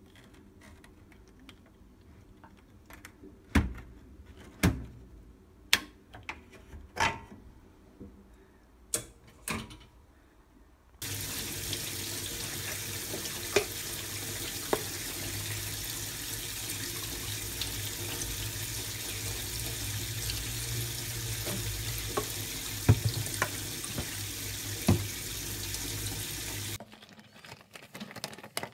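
A series of sharp clicks and metal knocks as an aluminium mesh range-hood grease filter is handled. Then a kitchen tap runs steadily onto the filter in a stainless-steel sink, with a few knocks, starting about a third of the way in and shutting off shortly before the end.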